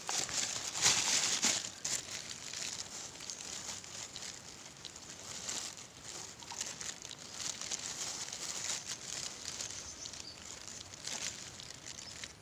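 Outdoor ambience: a steady high hiss with rustling and handling noises, loudest about a second in.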